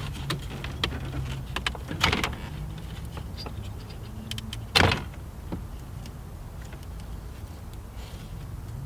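Plastic clicks and knocks of car interior trim and wiring connectors being handled and unplugged, with one louder knock about halfway through, over a faint steady low hum.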